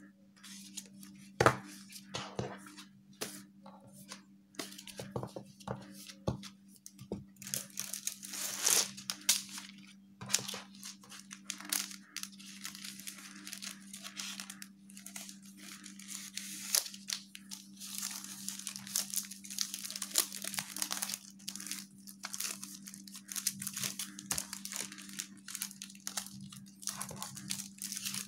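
Paper prints and a clear plastic sleeve handled by hand: irregular rustling and crinkling throughout, with one sharp snap about a second and a half in.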